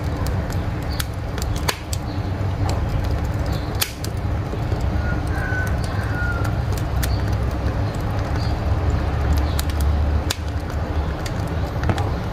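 Wood fire burning in a wood-fired cookstove: a steady low rush of flame with frequent, irregular sharp crackles and pops.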